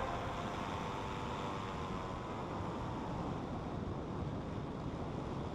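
Paramotor engine running steadily in flight, a faint drone under wind rushing over the microphone.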